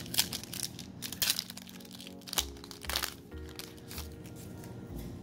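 Foil trading-card pack wrapper crinkling and tearing as it is peeled open, a run of sharp crackles over the first three seconds or so. Steady background music plays throughout.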